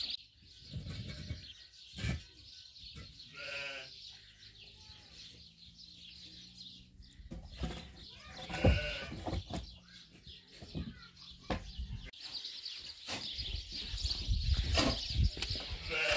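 An animal calling twice: a wavering call about three seconds in and another near nine seconds. A few sharp knocks come in between.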